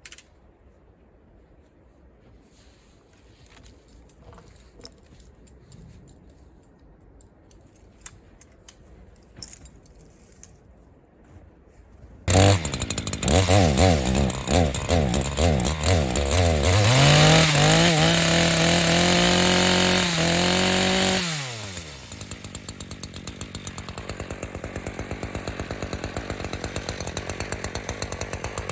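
Echo 3510 two-stroke chainsaw starting about twelve seconds in after some quiet handling clicks. It is revved up and down, held at high speed for a few seconds, then drops back to a steady idle near the end.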